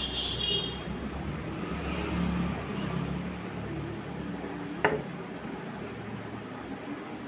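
Steady low background rumble that fades a little after about three and a half seconds, with a single short sharp click about five seconds in.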